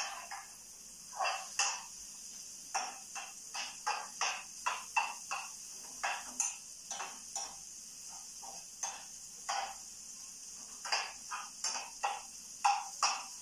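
Metal utensil scraping and knocking against a frying pan in short, irregular strokes, a few a second, as food is stirred and turned, over a steady high hiss of frying.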